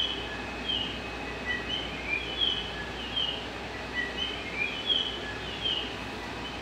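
Short, high bird chirps repeating about twice a second, some sliding down and some up in pitch, over a steady low background hum.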